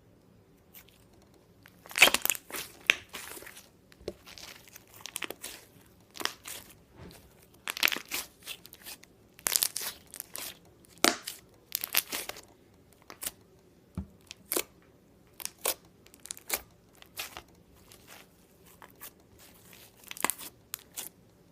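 Slime being squeezed and worked by hand, giving crackling, crinkly pops in short bursts about once a second, the loudest ones about two seconds in.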